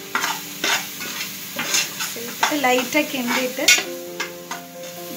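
A slotted metal spatula stirring and scraping ground masala powder around an aluminium pressure cooker, in hot oil and ghee that sizzle as the spices fry. The spatula makes repeated short scraping strokes against the pan's base.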